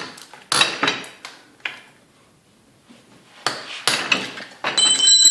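Sharp metallic clanks and knocks of a ratchet and socket against the bolts of a Kawasaki Bayou 400 engine's cylinder head. There are several strikes with a pause in the middle, and near the end a clink that rings like struck steel.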